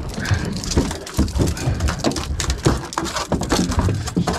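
A freshly landed fish thrashing on a boat deck: irregular thumps and slaps, several a second.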